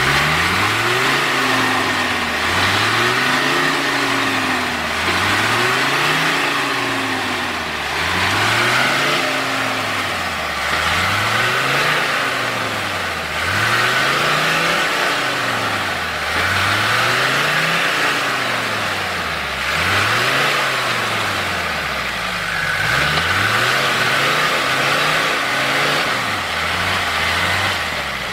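Off-road vehicle's engine revving up and down over and over, about every two seconds, a little quicker near the end.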